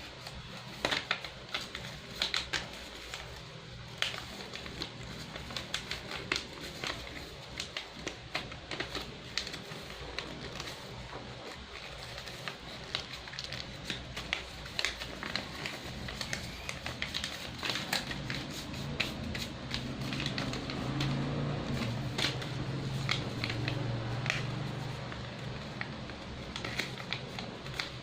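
Paper being handled and folded, with irregular crinkling rustles and sharp creasing clicks. A low hum rises about two-thirds of the way through and fades again.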